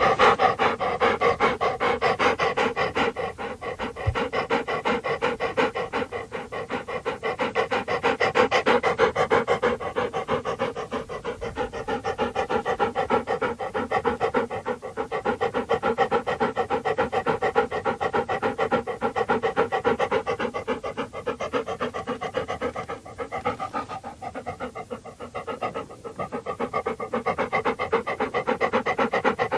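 A dog panting: quick, even breaths in and out in a fast, steady rhythm that keeps going throughout.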